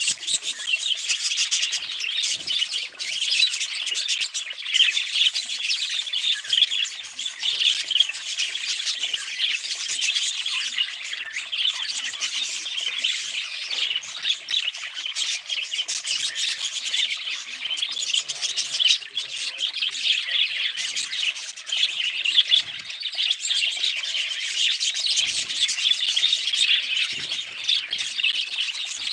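Pet budgerigars chirping and chattering without a break, a dense stream of quick high calls.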